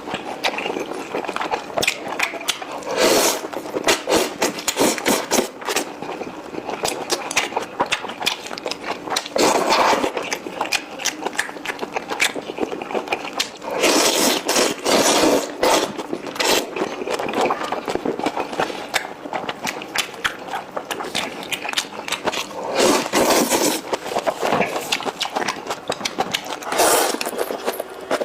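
Close-miked ASMR eating: wet chewing and mouth clicks, with a louder burst every few seconds.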